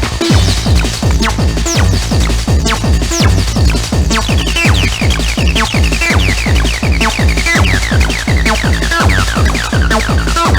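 Techno played as a DJ set: a steady, fast kick-drum beat under a run of short, falling synth notes.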